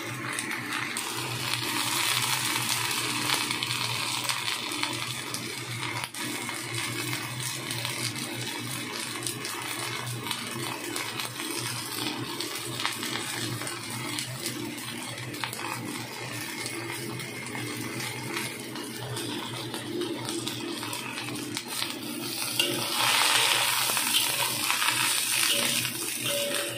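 Snow peas and carrot slices sizzling and bubbling in a wok, stirred with a metal spatula. The sizzle grows louder and brighter near the end as the vegetables are tossed.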